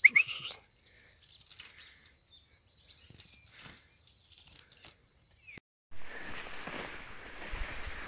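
Scattered brief chirps and small rattles from a wire bird trap cage being handled with a caught bird inside, the loudest a short rising chirp right at the start. After a brief gap about six seconds in, a steady even outdoor noise takes over.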